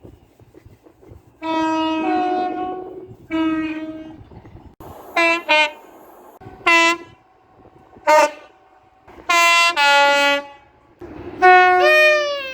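A string of train horn blasts from several trains, about eight in all: a few long two-tone blasts and several short toots. The last blast falls in pitch as the train passes.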